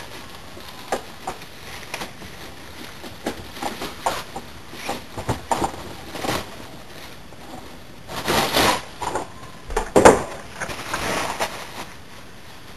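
Plastic bag crinkling and rustling as a fog machine is pulled out of it, with scattered handling clicks. A sharp knock about ten seconds in is the loudest sound.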